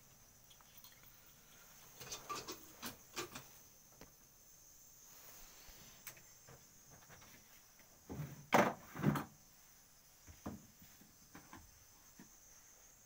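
Crickets chirring steadily in the background, with scattered soft knocks and rustles from handling, the loudest a pair about eight to nine seconds in.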